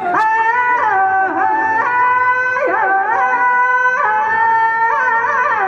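Rajasthani Teja folk music: a melody of long held notes that step up and down, with short glides between them and no drumbeat.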